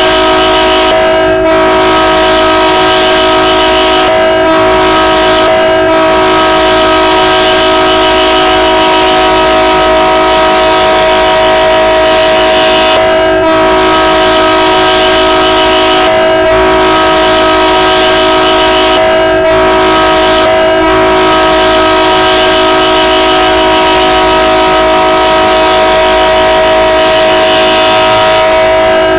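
Air horn of a Burlington Northern GE C30-7 diesel locomotive sounded in one long, loud blast, a multi-note chord held steady without a break.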